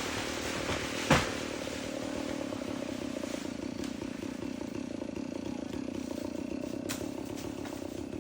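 Chainsaw engine idling steadily, with a sharp knock about a second in and a short click near the end.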